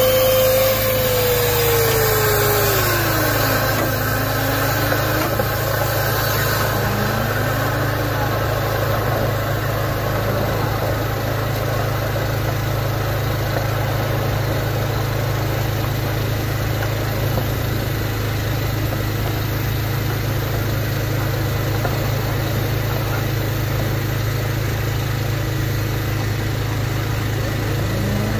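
Duct-cleaning machine running steadily with a constant motor hum while compressed air blows lint out of a dryer vent. A tone slides down in pitch over the first few seconds and glides up again near the end.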